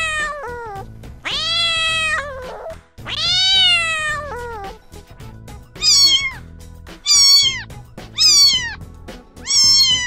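Domestic cat meowing repeatedly. The first three meows are long and drawn out, each rising then falling in pitch. From about six seconds in come four shorter, higher meows, about one a second.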